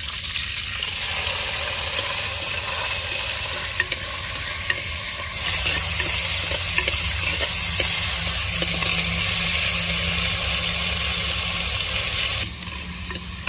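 Tomatoes sizzling as they sauté in hot oil with curry leaves. The sizzle grows louder about five seconds in and drops back near the end, with a couple of light clicks from the pan early on.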